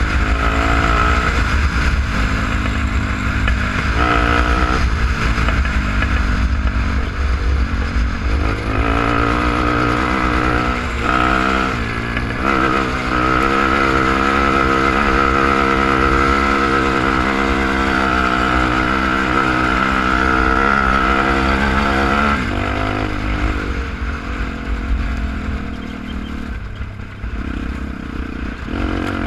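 Quad (ATV) engine running under throttle while being ridden. The revs are held fairly steady through the middle, then ease off near the end. Wind rumbles on the microphone underneath.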